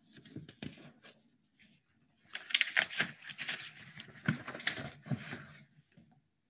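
Rustling and clicking handling noise close to the microphone: a few light clicks, then from about two seconds in some three seconds of irregular rustling with sharp clicks.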